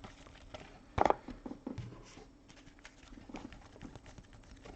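Trading cards being handled on a table: scattered light clicks and taps of card stock, with one sharper tap about a second in.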